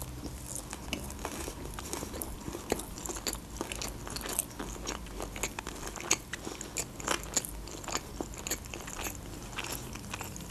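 A woman chewing a mouthful of baked sushi roll: a steady run of small, irregular wet clicks and crunches.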